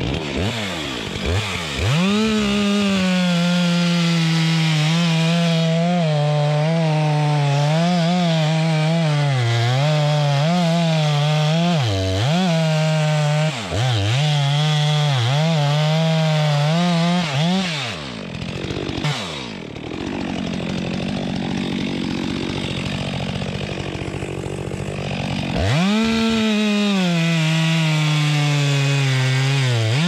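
STIHL chainsaw cutting into a pine trunk, running at full throttle with brief dips in engine speed. A little past the middle it drops to a lower, rougher note for several seconds, then climbs back to full speed near the end.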